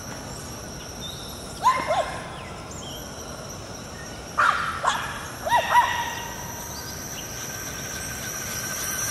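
Steady high-pitched whine of a radio-controlled monster truck's electric motor, growing louder near the end as the truck comes closer. Over it, Boston terriers give three short bursts of sharp yips and barks.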